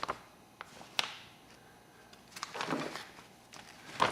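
Faint handling noises: a few small sharp clicks about a second apart and a short rustle, from small lighter parts and a plastic bag being handled.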